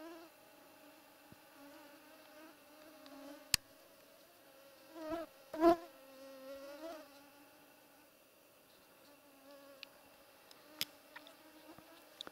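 Mosquitoes whining close to the microphone: a steady, wavering hum that swells loudest about halfway through as one passes close. A few sharp clicks cut in, one a little after three seconds and one near eleven seconds.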